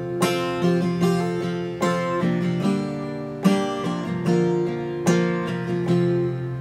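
Solo acoustic guitar strumming chords, each strum ringing on into the next, in an instrumental break with no singing.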